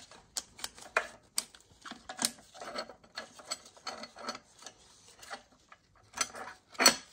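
Steel clutch plates and friction discs from a ZF 8HP automatic transmission's clutch pack clinking and clicking irregularly against each other and the case as they are handled, with a sharper clink near the end.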